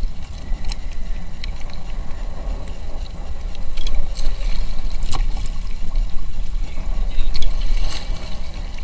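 Water lapping and splashing around two kayaks, over a steady low rumble, with a few sharp knocks. There is a paddle splash near the end as the second kayak pulls alongside.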